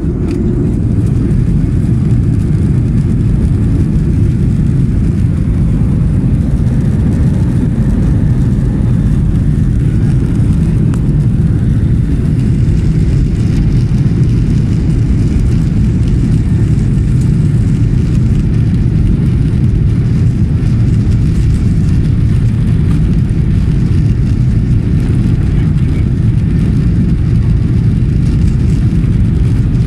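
Boeing 737-800's CFM56-7B jet engines heard inside the cabin from a seat over the wing: a loud, steady low rumble with a fainter hiss above it.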